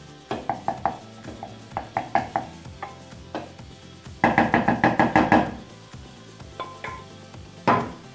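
Wooden spoon scraping and clicking against a nonstick frying pan as the cooked mushroom mixture is pushed out of it, with a quick run of about a dozen knocks about four seconds in and one louder knock near the end. Background music plays underneath.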